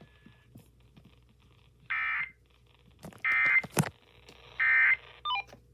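Emergency Alert System end-of-message data tones: three short, identical bursts of warbling digital tone about 1.3 seconds apart, marking the end of the severe thunderstorm warning. A sharp click falls just after the second burst.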